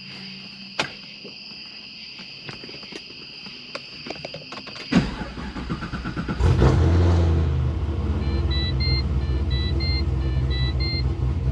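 A steady high electronic tone, then about five seconds in the Pontiac GTO's V8 is cranked over by the starter, catches with a brief rise in level and settles into a steady idle. Near the end a run of short electronic beeps sounds over the idle.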